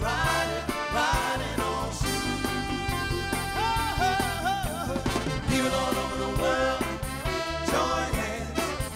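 Live soul music: a male lead singer sings with wavering, held notes over a backing band with a steady bass line and beat.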